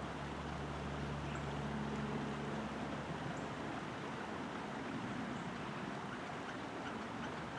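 Steady outdoor background rush with a low, engine-like hum that fades out about two and a half seconds in.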